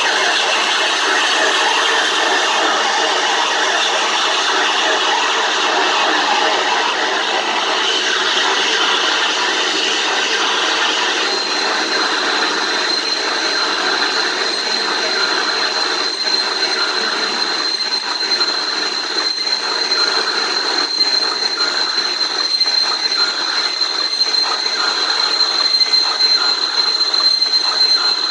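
Amplified experimental noise played live: a dense, loud wall of harsh hiss and grind. About a third of the way in, a steady high-pitched whine joins it and holds. The noise grows more choppy and uneven toward the end.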